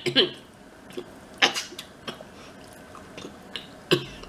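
A person coughing sharply twice, about a second and a half in and near the end, with a short vocal sound at the start. The coughs come from the burn of very spicy, hot food.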